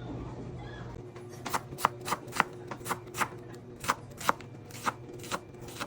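Kitchen knife chopping an onion on a cutting board: irregular sharp knocks, about two or three a second, starting about a second and a half in.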